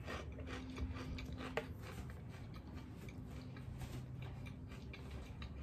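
Faint chewing of a mouthful of salad, with a few soft clicks in the first two seconds over a low steady hum.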